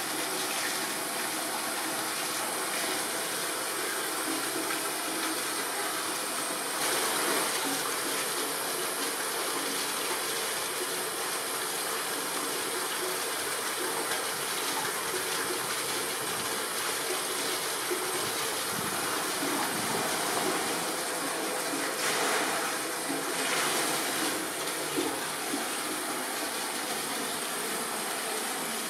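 Steady rushing of water in a polar bear's pool, an even hiss without a beat, swelling briefly louder about seven seconds in and again around twenty-two seconds.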